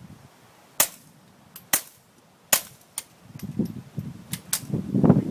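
Suppressed gunshots: three sharp shots about a second apart, with a few fainter cracks and ticks among and after them.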